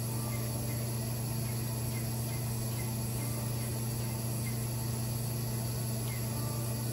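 Crystal microdermabrasion machine's vacuum pump running with a steady low hum while the handpiece passes over the skin, with faint small chirps repeating about twice a second.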